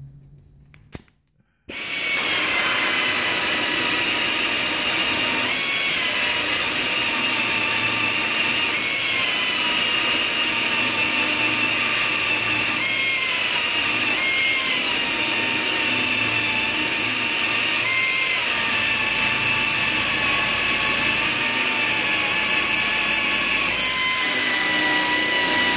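Small grinder with a 3-inch pad and 36-grit disc, grinding body solder flush over a filled rust hole in sheet metal for a rough coarse cut. It starts up about two seconds in and runs with a steady high whine and hiss, its pitch dipping briefly several times as the disc bites under pressure, then cuts off at the end.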